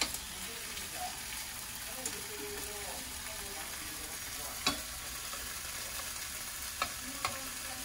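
Seasoned deodeok root strips sizzling steadily in a frying pan as they are turned over, with three sharp clicks in the second half.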